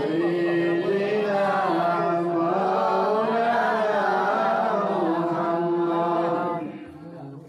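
A man's voice chanting in a long, drawn-out melodic tune into a microphone, the pitch gliding up and down on held notes, the melodic intoning a waz preacher uses in his sermon. The chant fades out about six and a half seconds in.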